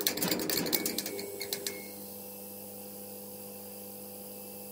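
Electric crackle and buzz of a neon-sign logo sting. Rapid flickering clicks for about two seconds settle into a steady electrical hum.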